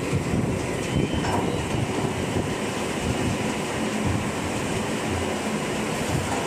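Automatic veneer peeling line running: a steady machine rumble and rattle, with a couple of short knocks about a second in.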